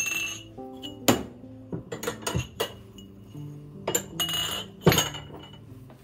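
Background music with steady notes, over which hard household objects clink and knock several times, the sharpest about a second in and again near the end.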